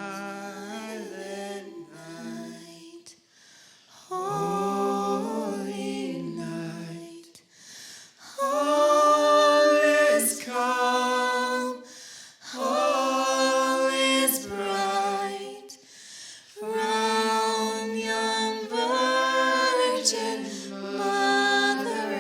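Several voices singing unaccompanied in harmony, in slow phrases of about three seconds with short breaks for breath between them.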